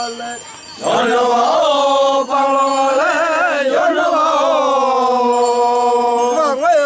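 A group of men chanting a traditional Naga song in unison, holding long drawn-out notes that waver and glide in pitch. The chant starts about a second in after a brief pause.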